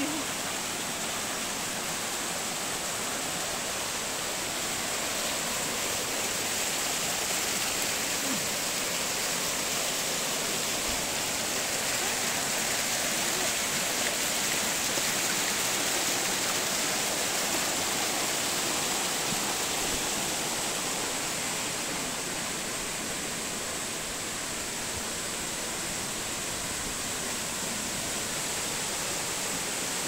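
A waterfall about 15 metres high falling onto rocks: a steady rush of falling water.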